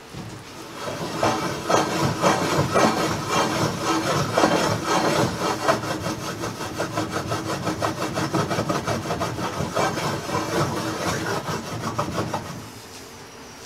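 Cast iron skillet being shaken back and forth on a stove grate, a repeated metal-on-metal scraping, to work a dab of butter into a simmering cream sauce. It starts about a second in and stops about a second before the end.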